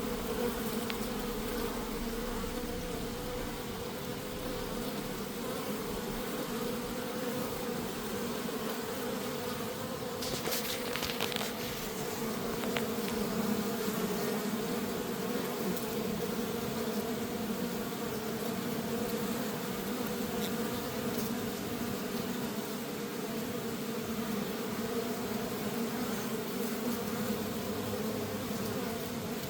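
Honeybees buzzing in a steady hum at an open hive during an inspection, with a short run of clicks about ten seconds in.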